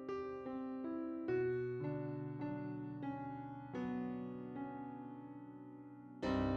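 Background music: a slow keyboard melody of single struck notes that ring and fade, with a louder, deeper chord near the end.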